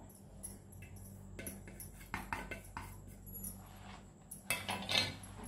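Spoon and small steel plate clinking and scraping as spice powders are tipped into a plastic mixing bowl, a few light scattered clicks, with a louder clatter of steelware near the end.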